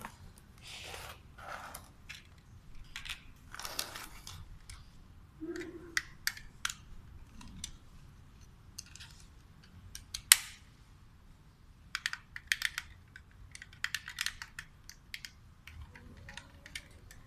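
Handling of a small plastic remote-control transmitter and its cardboard box: scattered clicks, taps and rustles, with one sharp click about ten seconds in.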